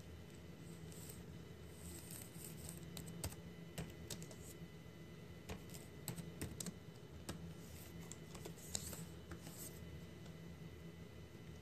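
Typing on a computer keyboard: slow, irregular keystrokes in short runs with pauses between them.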